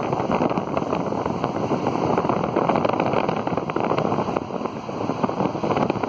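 Heavy storm surf breaking and churning against coastal rocks, mixed with strong wind buffeting the microphone. The rushing noise is loud and continuous, swelling and easing slightly.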